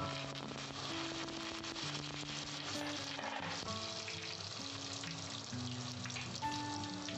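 Fresh curry leaves dropped into hot oil in a frying pan, sizzling steadily as they deep-fry. Background music of held notes plays over it.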